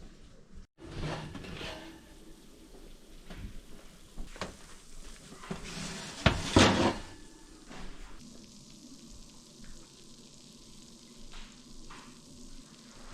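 Kitchen work sounds: a faint hiss with scattered knocks and clatters of utensils and dishes. The loudest is a couple of knocks about six and a half seconds in.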